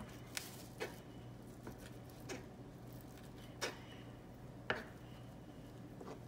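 Kitchen knife dicing raw pigfish fillet on a plastic cutting board: about five sharp, irregularly spaced taps of the blade striking the board, the loudest about three-quarters of the way through.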